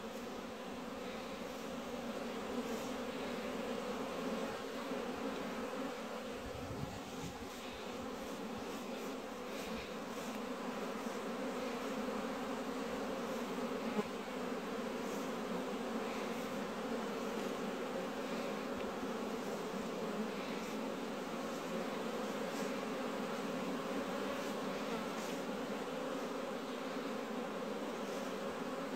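Honeybees buzzing around their hives: a steady, unbroken hum of many bees.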